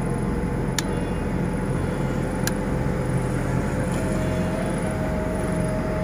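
York 2.5 hp inverter air conditioner's outdoor unit running with its compressor just started and still below full load: a steady mechanical hum, with a slightly higher tone joining about four seconds in. Two faint ticks come in the first half.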